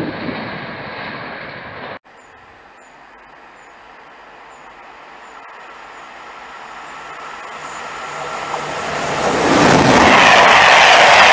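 A Corail passenger train hauled by a BB22200 electric locomotive approaches, its rolling rail noise growing steadily louder for several seconds until it passes close by near the end. This follows a hard cut about two seconds in from another train sound.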